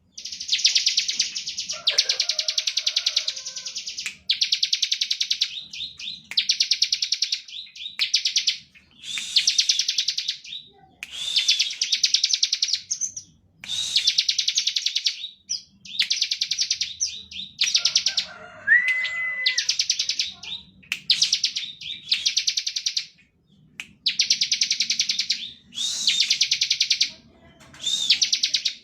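Bar-winged prinia (ciblek) singing hard in the 'ngebren' style: loud, high, rapidly pulsed rattling trills in bursts of a second or two, repeated with short pauses.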